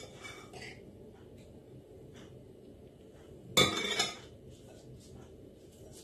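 Hands spreading crumbly ground-almond filling over a buttered filo sheet, with faint rustling and scratching. About three and a half seconds in, a short loud clatter lasts about half a second.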